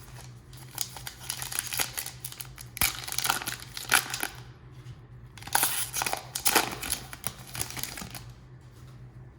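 Foil trading card pack being torn open and its wrapper crinkled by hand, in two spells of rustling, the second ending about eight seconds in.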